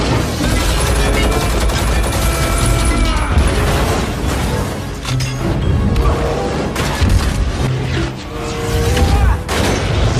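Loud dramatic background music mixed with booms and rapid bangs like gunfire.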